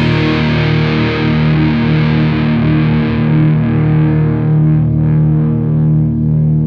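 Intro music on a heavily distorted electric guitar: sustained ringing chords whose bright top end slowly fades.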